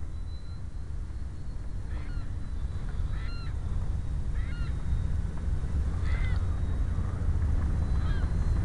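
Wind noise on the head-mounted microphone, growing steadily louder, with a bird calling five times, about every second and a half.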